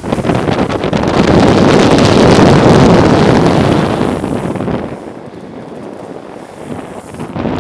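Heavy wind buffeting a moving car-mounted camera microphone, with road rumble underneath. It eases off for about two seconds from about five seconds in, then rises again.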